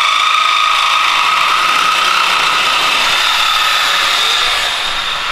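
Shop power tool running steadily with a loud, high-pitched whine, easing slightly near the end.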